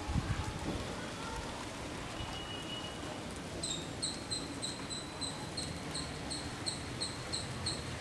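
Wind gusting across the microphone, with low rumbles and a steady rustling hiss as the hanging laundry blows about. From about halfway, a high chirping repeats about three times a second.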